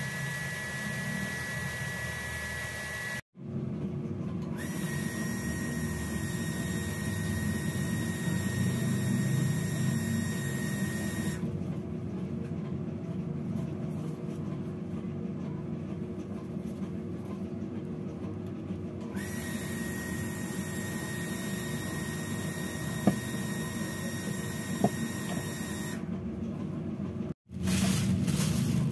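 A small electric motor whirring steadily, with a thin high whine. The whine drops out for several seconds in the middle and returns with a brief upward glide. The sound cuts off sharply for a moment about three seconds in and again near the end.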